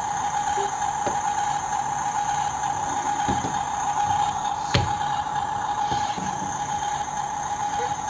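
Toy RC bulldozer giving a steady electronic hum, with a single sharp click nearly five seconds in as a hand presses on the toy.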